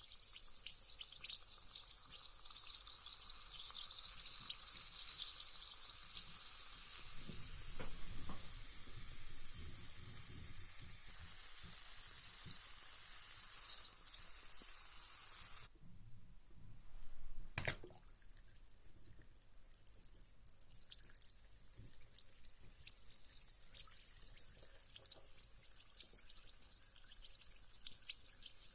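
Carbonated bath bomb fizzing in bath water: a steady high hiss of crackling bubbles. About 16 s in it drops suddenly to a fainter fizz, with a single sharp click shortly after.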